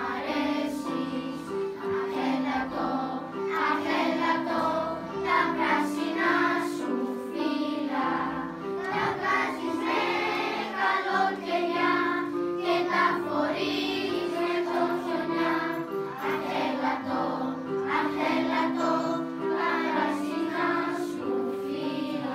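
Children's choir singing a Christmas song in unison over electronic keyboard accompaniment, the keyboard holding steady chord notes beneath the voices.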